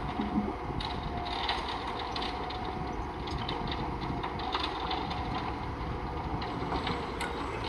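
Construction work noise: a steady mechanical hum with many small clicks and taps scattered throughout.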